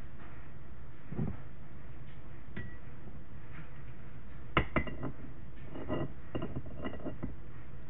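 Glass jar being handled and set against the countertop: two sharp clinks a little past the middle, then a run of lighter clinks and taps with a brief glassy ring.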